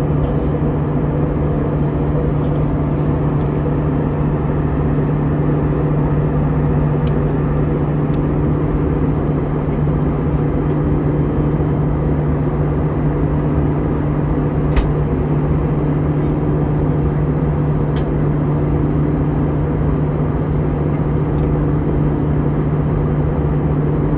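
Steady in-flight cabin noise of an Airbus A320: a constant drone of engine and airflow noise with a low hum. A few faint clicks come through it.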